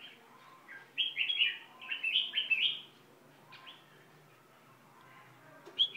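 Caged songbird singing: a quick run of clear, sweeping chirps about a second in that lasts nearly two seconds, then a single faint note, and a fresh burst of song just before the end.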